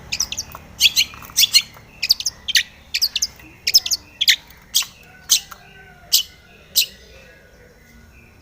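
Long-tailed shrike singing: a fast run of short, sharp, high chirps, some in quick pairs, about two a second, stopping about seven seconds in.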